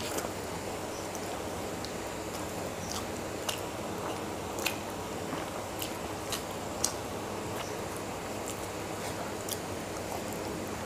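Close-miked chewing and wet mouth sounds of someone eating mutton curry and pulao by hand, over a steady background hiss. Scattered short, sharp clicks come from the mouth and from fingers working the food on a steel plate.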